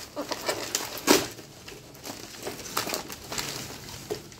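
Cardboard and plastic packing wrap rustling and crinkling as a parcel is torn open by hand, with a louder crack about a second in and lighter, irregular rustles after it.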